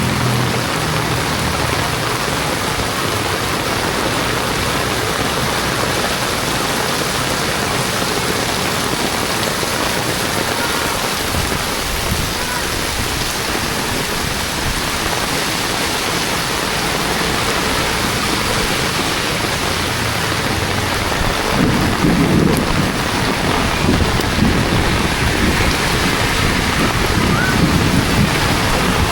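Heavy rain pouring steadily, a dense even hiss of rain hitting the street and surrounding surfaces. A low rumble joins in during the last several seconds.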